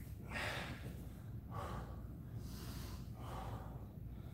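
A man breathing hard through his mouth after a set of sit-ups, about one breath a second. He is winded from exertion.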